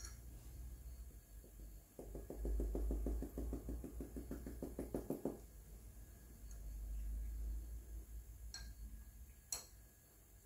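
Plastic shaker of powdered sugar shaken over a jar, a quick even rattle of about nine or ten taps a second lasting about three seconds. It is followed by a couple of light clicks.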